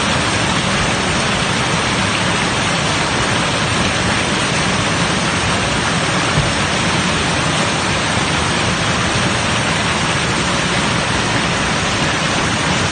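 Whitewater pouring over a river weir, a loud, steady rush with no pauses, and a brief low thump about halfway through.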